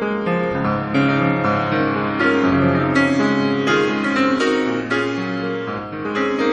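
Piano music: a melody of struck notes over chords, played in a steady flow.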